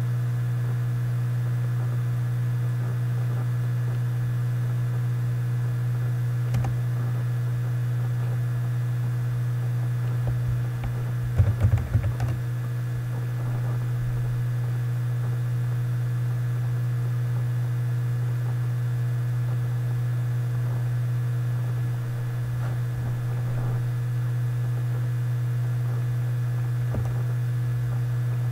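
A steady low electrical hum runs throughout. About ten seconds in comes a short run of computer-keyboard typing, a word being typed, and there are single clicks a few seconds before it and near the end.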